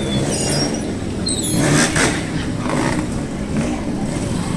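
Several motorcycle engines running, with a louder surge of revving about two seconds in.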